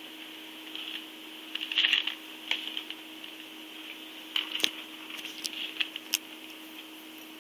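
A cat licking and grooming another cat's fur: irregular small wet clicks and rustles in short clusters, over a faint steady hum.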